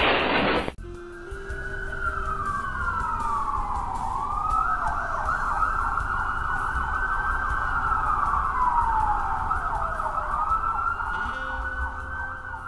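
Siren wailing: one tone that slides slowly down and back up, twice, after a loud rush of noise that cuts off just under a second in.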